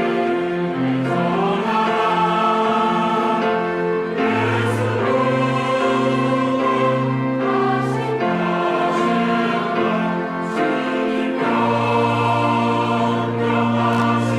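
Church choir singing an anthem in sustained chords, the notes changing every second or so over a shifting low line.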